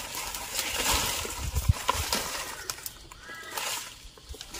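Dry fallen leaves and undergrowth rustling and crackling as someone in rubber boots climbs a leaf-littered slope, with a few dull footstep knocks about a second and a half in.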